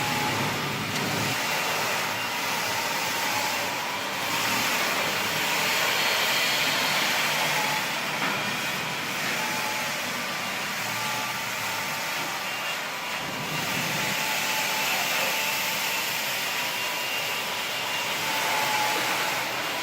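Parking-lot floor-cleaning machine running steadily, a motor drone with faint whines that come and go.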